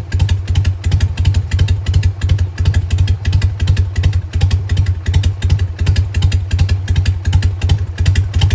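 Harley-Davidson Sportster 883's air-cooled V-twin idling steadily with an even, low, pulsing beat, warming up after a cold start with the choke pulled.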